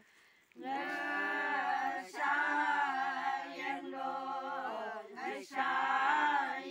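A group of women singing together a cappella, sustained phrases in unison that begin about half a second in, with brief breaks for breath about two seconds in and again near five and a half seconds.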